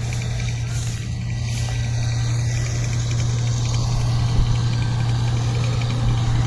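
Engine of harvesting farm machinery running steadily with a deep, even hum, getting a little louder toward the end.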